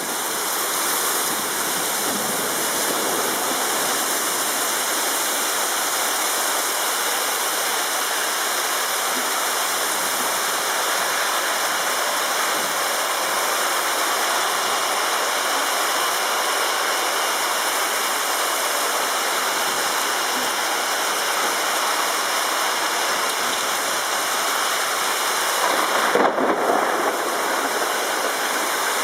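Heavy rain pouring down in a windy storm: a dense, even hiss with a short louder surge near the end.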